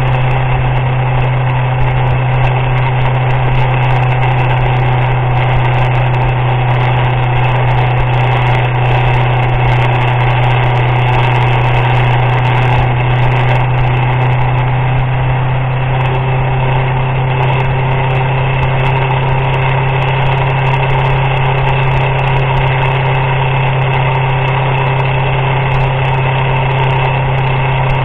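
Motorcycle engine running at a steady cruise while riding, a constant loud drone with no revving; its tone shifts slightly about sixteen seconds in.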